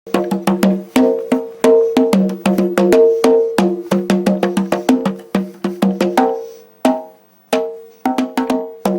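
A tune of short, struck, pitched notes, about four a second, each dying away quickly. It pauses briefly near the end before a few more notes.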